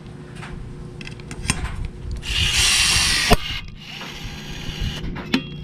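Electric blind rivet tool pulling a pop rivet: its motor runs for about a second and ends in a sharp snap as the rivet's mandrel breaks off, the rivet set. A few lighter clicks of the tool being fitted on and handled.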